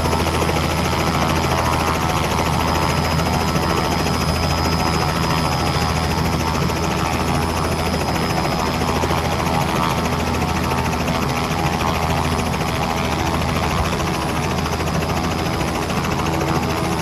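Helicopter running steadily, its rotor chop over a constant engine drone with a faint high whine.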